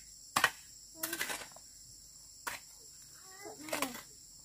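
A hoe striking and scraping into sandy soil, four short strokes about a second apart, over a steady high drone of insects. A child's voice is heard briefly near the end.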